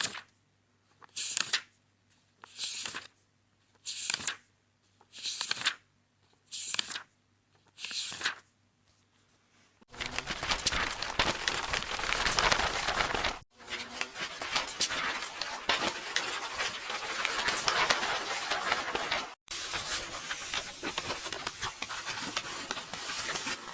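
Paper book pages turning, one quick swish about every second and a half, seven times. About ten seconds in, this gives way to a dense, continuous crackle of paper tearing, which cuts out briefly twice.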